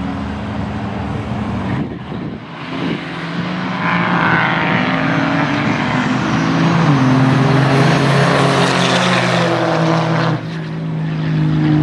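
Two turbo-diesel Dodge Ram pickups running at the start line, then launching at full throttle. The engines climb in pitch as the trucks accelerate away. The sound drops off sharply about ten seconds in and goes on quieter as they pull away.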